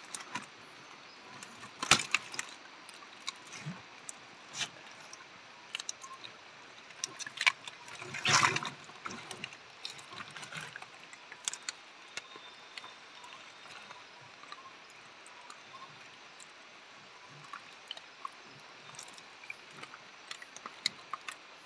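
A wet gill net being pulled and picked off a large mahseer in the bottom of a boat: scattered small rustles, drips and knocks, with a louder brief scuffle at about two seconds and again at about eight and a half seconds.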